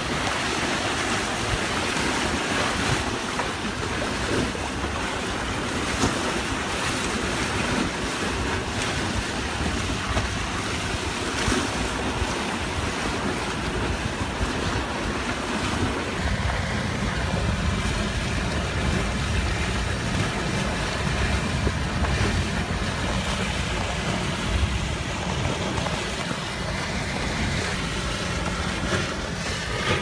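Wind and water rushing past a sailboat moving under sail, with wind buffeting the microphone. The low wind rumble on the microphone grows heavier about halfway through.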